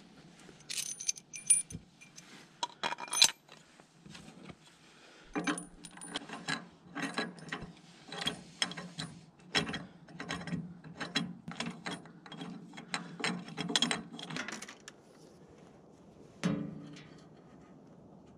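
Small metal clinks of a washer and bolt being fitted, then a socket ratchet clicking in repeated short strokes, about two a second, as a bolt is run in on the sawmill head. One sharp knock near the end.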